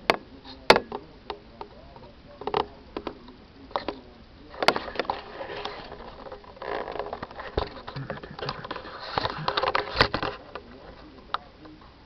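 Handling noise from a handheld camcorder: scattered sharp clicks and taps, with a stretch of denser rustling from about five to ten seconds in.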